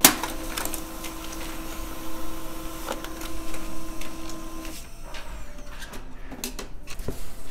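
Desktop printer feeding and printing a page, a steady motor whir with mechanical clicks that stops a little under five seconds in. The printed sheet is then pulled out and handled, with paper rustling and clicks.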